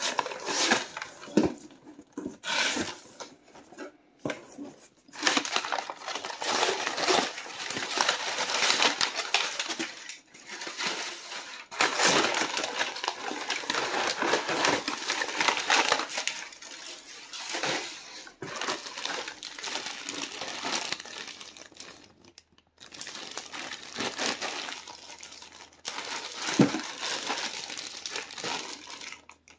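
Clear plastic bag and packing paper crinkling and rustling, with scrapes and knocks of cardboard box flaps, as a parcel is unpacked by hand; the crinkling comes in spells with brief pauses, and there is one sharp knock near the end.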